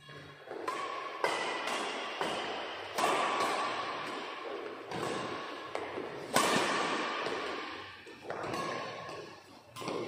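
Badminton rackets striking a shuttlecock in a doubles rally: a string of sharp hits about one to two seconds apart, each echoing briefly in the hall.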